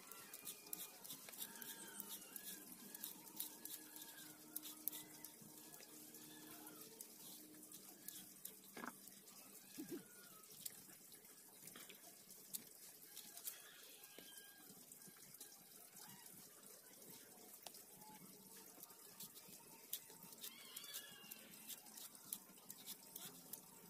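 Faint, scattered scraping clicks of a plastic peeler stripping the skins off green bananas, over a quiet background.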